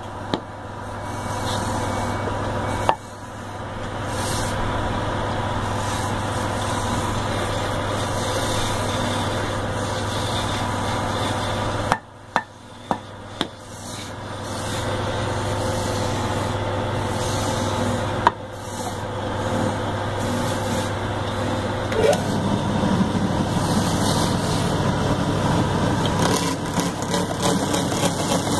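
Electric wood lathe running with a steady hum while a wooden sofa-leg blank spins on it. From about two-thirds of the way in, a hand chisel cuts into the spinning wood and adds a rough scraping. There are a few sharp knocks, most of them in a quick cluster near the middle.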